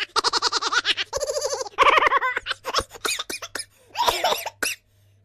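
High-pitched laughter in rapid bursts of quick pulses, several bursts in a row, with a run of short clicks in the middle.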